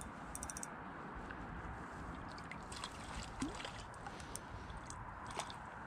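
River water rushing steadily, with scattered small clicks and ticks over it and a brief fast rattle of clicks just after the start.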